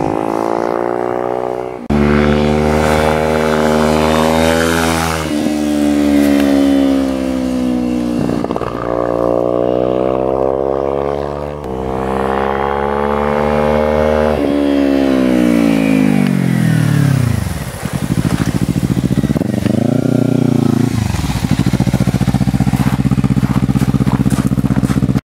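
Kawasaki Ninja 300 parallel-twin engine accelerating hard through the gears: the pitch climbs and then drops at each of several upshifts. It then winds down, gives one brief rise and fall, and settles to a steady low run near the end.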